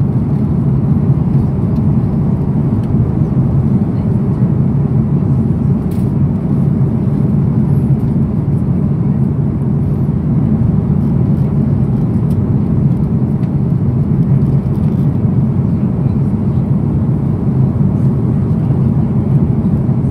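Steady low cabin noise of an Airbus A330-300 airliner in cruise, heard from inside the passenger cabin: engine and airflow noise.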